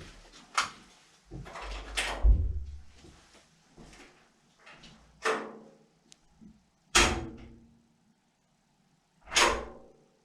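A series of loud knocks or bangs, about five a couple of seconds apart, each dying away with a short ring.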